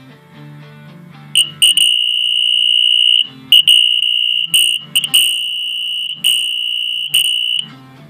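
Fire alarm horn sounding a loud, high steady tone in a string of irregular blasts, some short and some up to about a second and a half long. The blasts start about a second in and stop just before the end, with guitar music heard before and after them.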